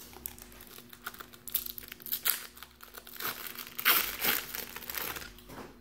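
Foil wrapper of a 1993-94 Fleer Ultra basketball card pack being crinkled and torn open by hand, a run of dense crackles that is heaviest about three to five seconds in.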